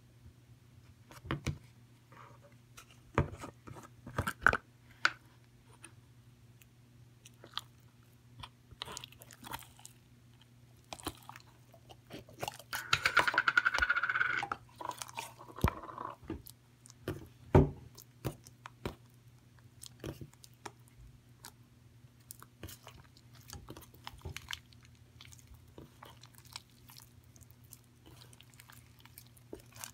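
Slime being squished and pulled by hand, making scattered sticky clicks and pops. A longer, louder squelch comes about thirteen seconds in.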